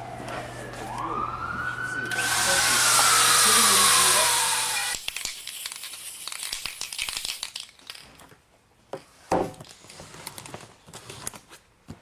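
A siren wails, its pitch falling, then rising and falling again, over a loud hissing rush for about three seconds. Both cut off suddenly about five seconds in, leaving scattered clicks and a sharp knock.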